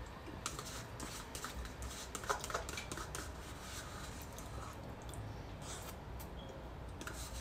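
A metal utensil scraping and clicking against a small plastic cup as food is scooped out and eaten, in a run of faint, irregular clicks and scrapes with one sharper click a little over two seconds in.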